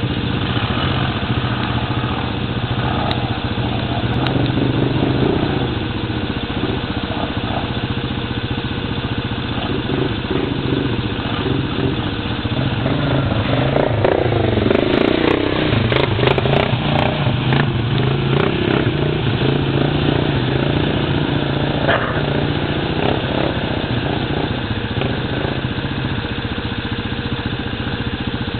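ATV engines running: a steady low engine drone throughout, with engine revs rising and falling as quads ride through mud and water, most strongly around the middle.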